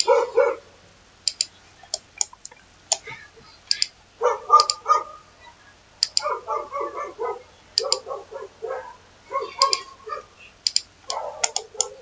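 Computer mouse clicking now and then, with a dog barking in quick runs of short yaps that are louder than the clicks.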